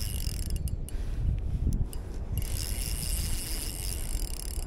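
Shimano Vanford spinning reel being cranked with a fish on the line: a steady high whir from the reel's gears that stops about a second in and starts again near the middle, over a low rumble of wind on the microphone.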